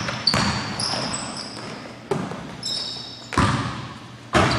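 A basketball bouncing several times on an indoor gym floor, each bounce echoing around the hall, with short high sneaker squeaks from players cutting on the court.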